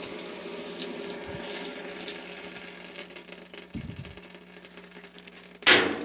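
Water spraying into the stainless basket of a GE GTW465 top-load washer at the start of its drain-and-spin cycle, the hiss fading over the first few seconds above a steady low hum from the machine. A dull thud comes about four seconds in, and a sharp clunk near the end as the lid lock engages and clamps.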